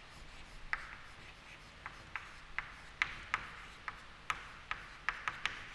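Chalk writing on a chalkboard: about a dozen sharp, irregular taps as block capital letters are chalked on, with faint scraping between them.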